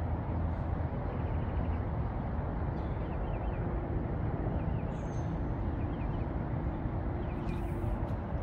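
Steady road traffic noise, with a few faint short bird chirps in the middle and a few sharp clicks near the end.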